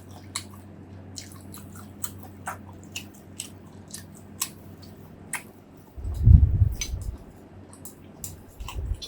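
Close-miked chewing with many sharp, wet mouth clicks and smacks over a low steady hum. About six seconds in comes a loud low rumble lasting about a second, and a softer one near the end.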